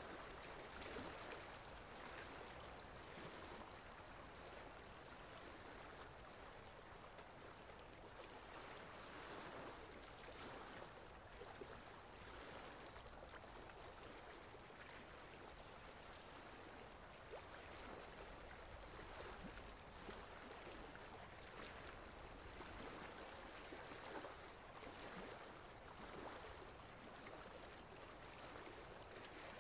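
Near silence with a faint, even rush of water that swells gently now and then.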